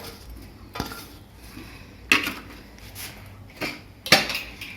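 Metal kitchenware knocking and clinking against a pressure cooker: four or five separate sharp clinks.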